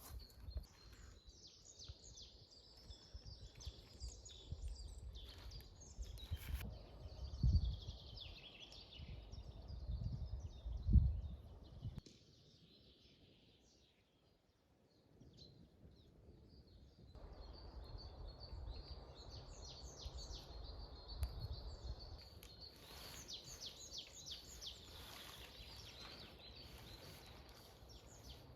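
Songbirds chirping and trilling over low rumbling thumps, the loudest two about seven and eleven seconds in. The birdsong drops away for a few seconds midway, then returns with quick trills near the end.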